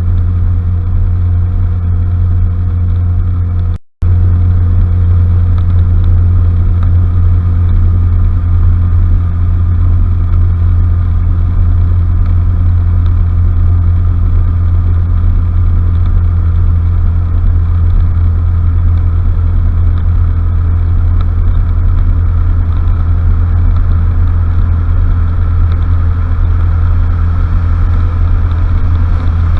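Honda Fusion 250 cc scooter's single-cylinder engine running at a steady cruising speed, a constant low hum. The sound cuts out for a split second about four seconds in.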